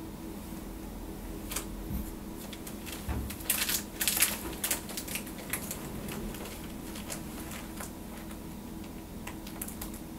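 Scattered soft rustles and small clicks of clothing and chairs as two seated people shift and lean toward each other, busiest a few seconds in, over a steady low room hum.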